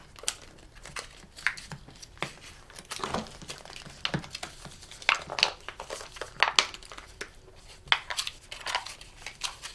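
Toy packaging being handled and torn open: irregular crinkling and crackling of wrappers as a blind-box toy is unwrapped.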